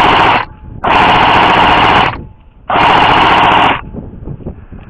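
Airsoft gun firing long full-auto bursts: one cut off about half a second in, then two more of about a second each, with short gaps between.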